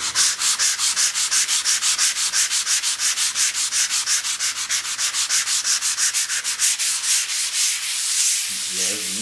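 Sandpaper on a hand sanding block rubbed rapidly back and forth over a wall skimmed with massa corrida (wall putty), in a quick even rhythm of about six strokes a second. It is sanding out small defects in the dried putty coat to leave the wall smooth before painting.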